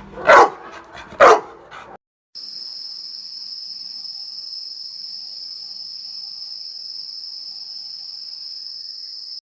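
A dog barks twice. After a short break, an insect's steady high-pitched trill runs on unchanged for about seven seconds, like a cricket's.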